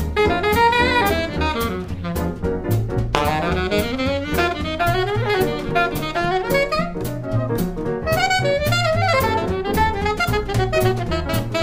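Alto saxophone improvising a jazz solo in quick runs of notes, accompanied by piano, upright bass and a drum kit.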